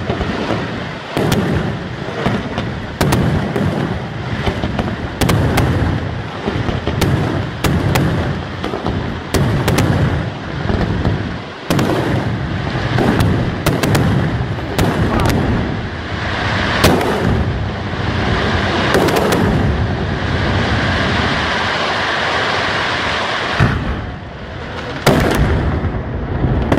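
Daytime fireworks display: a continuous barrage of loud bangs, one or more every second, over a steady crackling hiss that thickens in the middle stretch.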